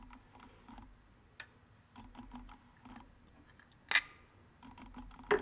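Light clicks and handling noises as a metal carburetor float bowl is fitted back onto a small scooter carburetor, with two sharper clicks, one about four seconds in and one near the end.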